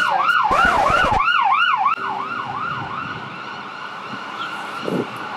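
Emergency-vehicle siren on a fast yelp, its pitch sweeping up and down about three times a second. It is loud for the first two seconds, then drops off and fades out, leaving steady street traffic noise.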